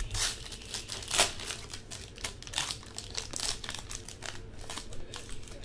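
Trading-card pack wrapper crinkling and tearing as it is ripped open by hand, an irregular run of crackles with the loudest near the start and about a second in.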